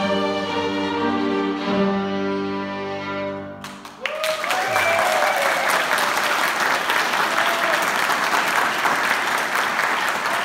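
A violin ensemble holds its final chord, which dies away about three and a half seconds in. The audience then breaks into steady applause.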